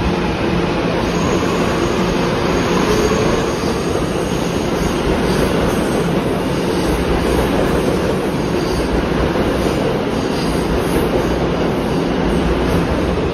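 R211A subway train pulling out of the station and passing close by: a loud, steady noise of steel wheels on rail and the cars running past.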